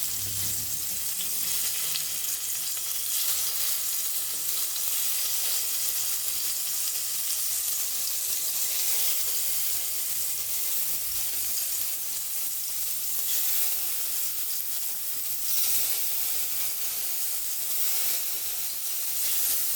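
Marinated paneer cubes sizzling as they fry in hot ghee in a kadai, a steady high hiss with small swells as the pieces are stirred and turned.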